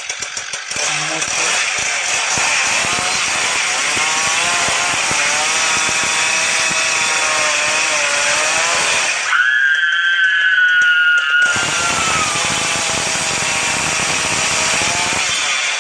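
Chainsaw sound effect from a scary-sounds app: a chainsaw running and revving up and down. About nine seconds in it gives way to a scream of about two seconds, then the chainsaw runs again and cuts off near the end.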